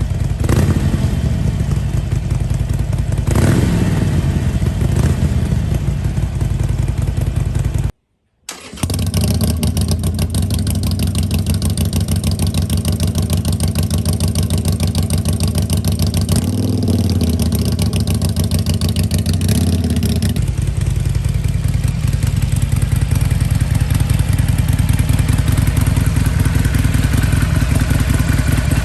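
Harley-Davidson Iron 883's air-cooled V-twin running through its exhaust. It is revved twice in the first few seconds, cuts out for about half a second around eight seconds in, then idles steadily, held at a higher speed for a few seconds in the middle.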